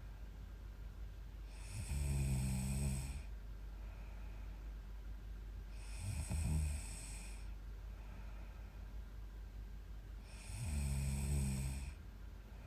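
A young woman snoring in her sleep: three loud snores about four seconds apart, each lasting just over a second, with quiet breathing noise between them.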